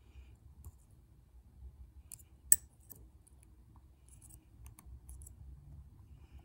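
Lock pick working the pins inside a lock: light scattered metallic clicks and scrapes, with one sharp, much louder click about two and a half seconds in.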